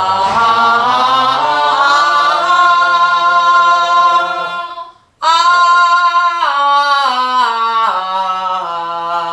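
Women singing a pansori vocal exercise without accompaniment. A long held note slides up and stays high, then after a short breath about five seconds in the note steps down in pitch.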